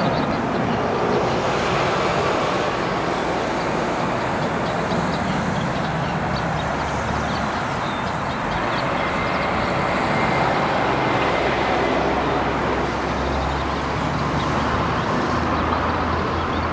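Twin General Electric GE90 turbofans of a Boeing 777-200LR at takeoff thrust: a steady, loud jet noise as the airliner runs down the runway. The low rumble grows stronger near the end as it lifts off.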